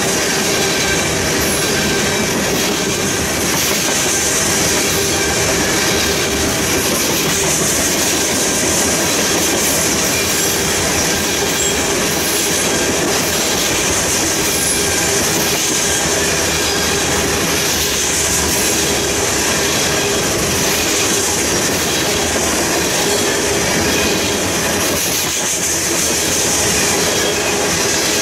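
Loaded crude-oil tank cars of a freight train rolling past: a steady noise of steel wheels on rail, with repeated clicks as wheelsets cross rail joints and a thin high squeal over the top.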